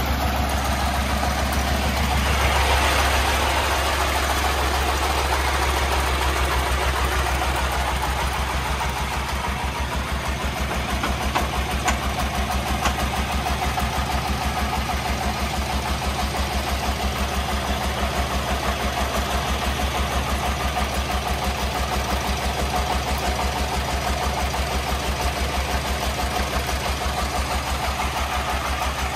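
Single-cylinder 24 hp diesel engine of a công nông three-wheeled farm truck running steadily at idle with an even, rapid thudding beat. Sand hisses as it slides off the tipping dump bed, loudest in the first few seconds.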